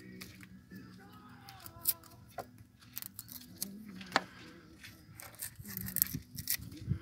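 Dried bokkoms (salted mullet) being cleaned by hand: a run of short, sharp snips and crackles from the dry fish, with one sharper crack about four seconds in.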